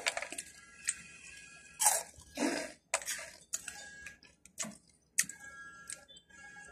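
Crunching and chewing of crisp Oishi spicy prawn cracker sticks: scattered sharp cracks and clicks with short crackly bursts, a few of them louder about two and three seconds in.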